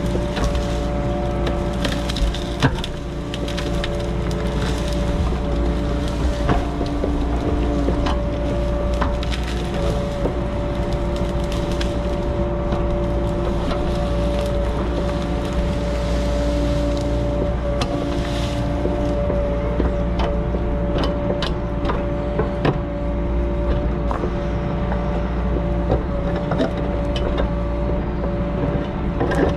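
Mini excavator's diesel engine running steadily under work, with frequent sharp cracks, snaps and knocks from the digging.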